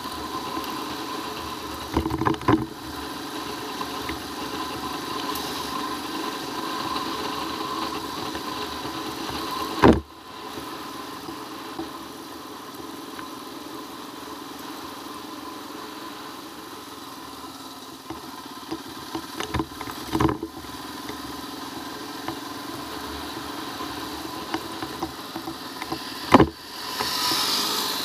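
Royal Enfield Himalayan's single-cylinder engine running steadily while riding on a rough dirt road, with several sharp knocks as the bike jolts over bumps. A rush of noise rises near the end as another motorcycle comes alongside.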